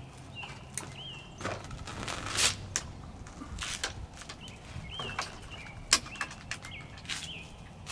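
Scattered clicks, knocks and rustling of a Vitilan i7 folding e-bike being handled and unfolded, with a sharper knock about six seconds in. Birds chirp now and then in the background.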